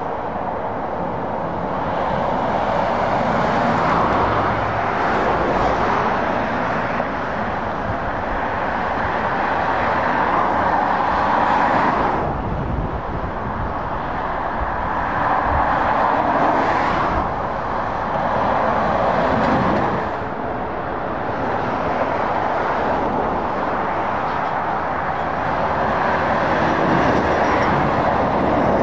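Road traffic of lorries and cars passing close by on a motorway. The tyre and engine noise swells and eases as each group of trucks goes past.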